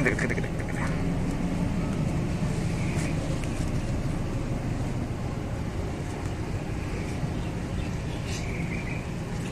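Steady low mechanical hum, with a few faint clicks and short high-pitched sounds near the start, about three seconds in, and near the end.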